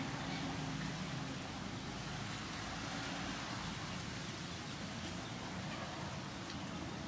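Steady outdoor background noise, an even hiss with a low steady hum underneath and a few faint ticks.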